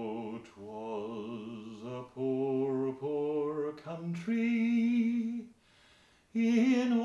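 A man singing unaccompanied in slow, drawn-out notes, each held for about a second, with a short break for breath about five and a half seconds in.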